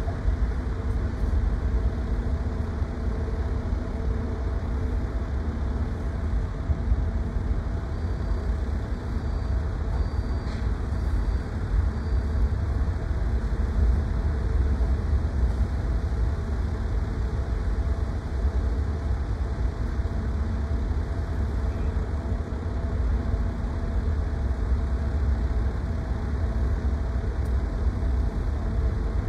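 Steady low rumble with a constant machinery hum from a docked cruise ferry and idling cars queued to board. A few faint short high beeps sound about a third of the way in.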